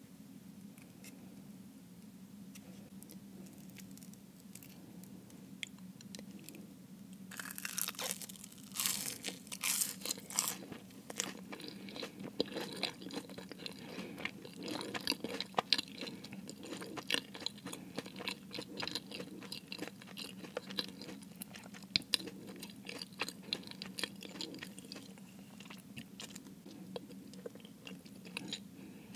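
Close-miked bite into the flaky pastry crust of a Jamaican beef patty, crunching loudly for a few seconds about seven seconds in, then steady chewing with many small crisp clicks. A steady low hum lies under it throughout.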